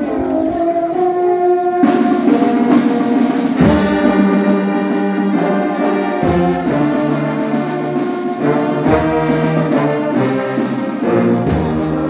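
Brass band led by tubas and euphoniums playing a slow tune in sustained chords, with deep bass notes joining about four seconds in.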